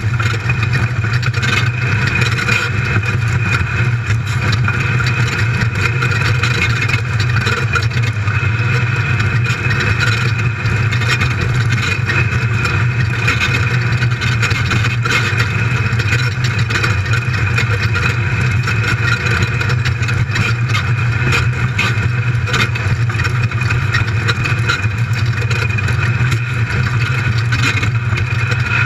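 The sport buggy's LS1 V8 running hard at a fairly steady pitch under race load, heard from inside the cockpit, with constant knocks and rattles from the chassis over rough dirt.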